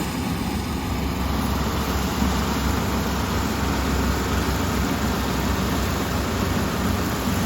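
Kubota ER470 combine harvester running, a steady, unbroken drone of its diesel engine and threshing machinery.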